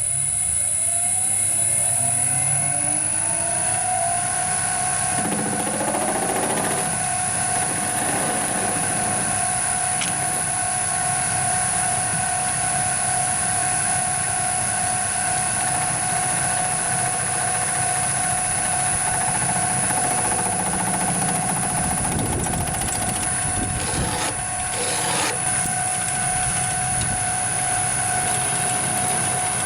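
Metalworking machine tool motor spinning up, its whine rising in pitch over the first few seconds, then running steadily with a high whine, with short rough spells of cutting noise about six seconds in and near the end.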